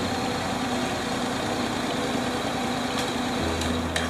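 Honda NC-series DCT motorcycle's parallel-twin engine idling steadily, warmed up after a heat cycle.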